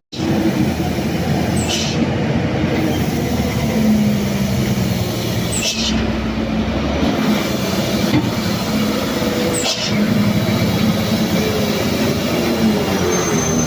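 Heavy diesel vehicle engine labouring up a steep climb, a steady loud drone, with a short high hiss about every four seconds.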